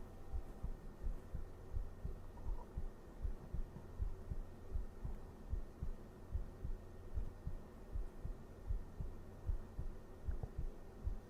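A man's heartbeat picked up close by a microphone: a steady rhythm of soft, low thumps over a faint low hum.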